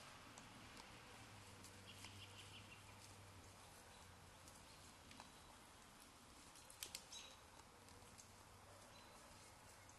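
Near silence: faint outdoor background hiss and low hum, with a few faint clicks and chirps, the sharpest about seven seconds in.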